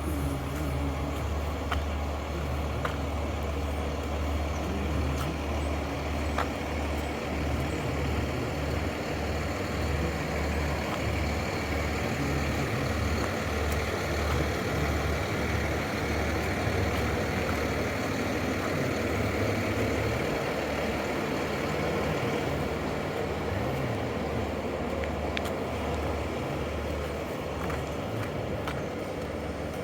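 Heavy road-work machinery or truck engine running steadily nearby, a low pulsing hum under a broad mechanical rumble.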